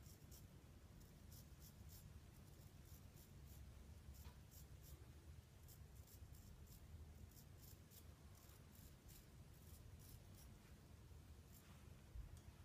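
Riccardo Tonarini Lobster straight razor scraping through lathered stubble on the neck: a run of short, faint, raspy strokes at an uneven pace that stop shortly before the end, followed by a soft low bump.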